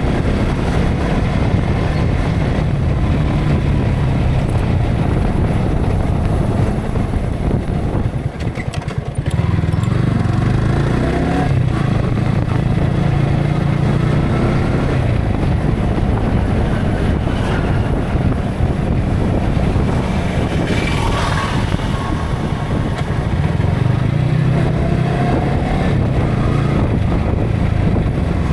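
Yamaha R15 V3's single-cylinder engine running under way, heard through an action camera's built-in microphone with heavy wind noise. The engine note drops briefly about eight seconds in, then rises as the bike accelerates again, with another rise near the end.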